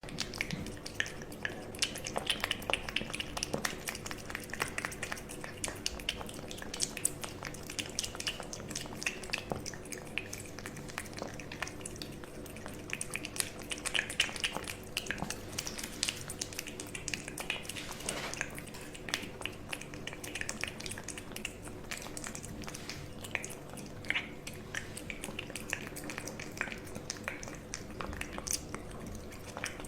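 A cat eating, with many quick, irregular chewing clicks throughout over a faint steady hum.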